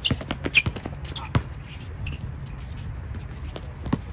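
A basketball bouncing on a court floor, with a quick run of sharp thuds in the first second and a half and another near the end, over the steady low hum of the hall.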